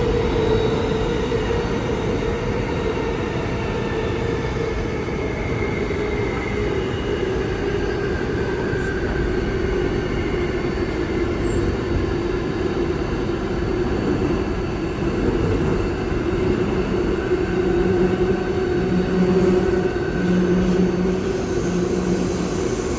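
Subway train running, heard from inside the car: a steady rumble of wheels on rail with a sustained whine. About two-thirds of the way in, a low tone starts switching on and off several times.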